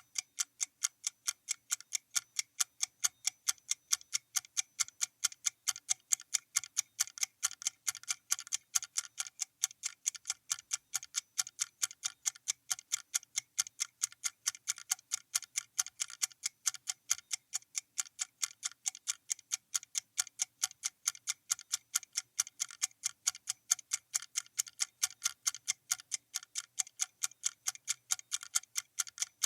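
Clock ticking sound effect: fast, perfectly even ticks, several a second, counting down a timer.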